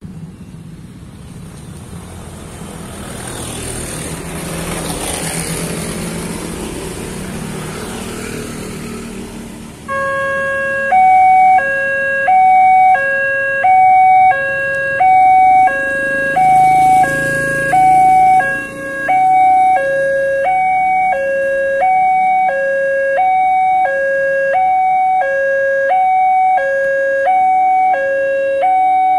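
Street traffic noise with motor engines. About ten seconds in, an electronic railway level-crossing siren starts and keeps up a loud two-tone warning, switching between a high and a low tone roughly every three-quarters of a second. The siren is the warning of an approaching train as the crossing barrier closes.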